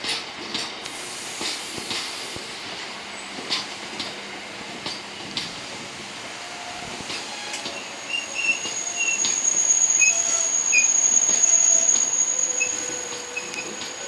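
Freight wagons of a cement train rolling past close by, their wheels clicking and knocking irregularly over the rail joints and points. From just past halfway, a steady high-pitched wheel squeal sets in for about four seconds and is the loudest part.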